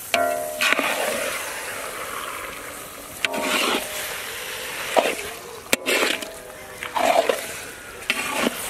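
Long metal ladle stirring and scraping raw chicken pieces with spices and peanuts in a large iron kadai, in a handful of irregular strokes with a sharp click midway. A short pitched sound cuts in near the start and again about three seconds in.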